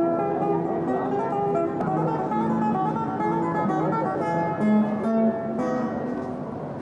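Classical guitar fingerpicked by a street musician: a melody of plucked notes over bass notes.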